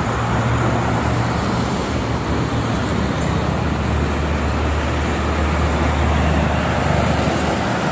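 Heavy motorway traffic, mostly trucks and buses, passing steadily: a constant roar of tyres and engines. A low engine drone grows stronger about halfway through as a cargo truck and a bus pass close.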